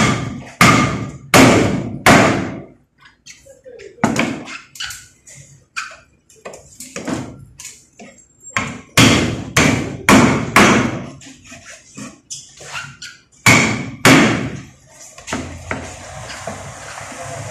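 A white mallet striking the spine of a large knife again and again, driving the blade down through a grouper's body and backbone to cut it into steaks. The blows come in runs of three or four, one to two a second, with short pauses between runs.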